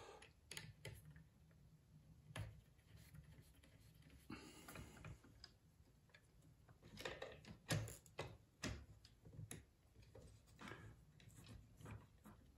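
Faint, irregular clicks and taps of metal hardware as bolts are fitted by hand into an aluminium z-axis assembly on a desktop CNC router, with a small cluster of louder taps a little past the middle.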